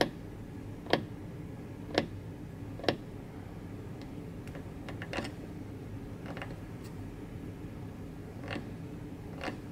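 Small pointed metal carving tool scraping along grooves in a block of blue jeweler's carving wax: short, sharp scratches about once a second at first, then fainter and further apart.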